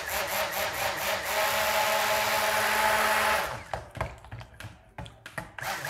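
Handheld stick blender running in a stainless steel bowl of soap batter, a steady motor whir for about three and a half seconds before it switches off. A few sharp knocks follow, and the blender starts again near the end.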